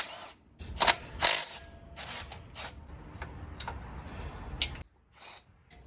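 Hand ratchet wrench clicking in short irregular runs, with a couple of sharper metal knocks about a second in, as bolts are worked loose on an engine's accessory brackets.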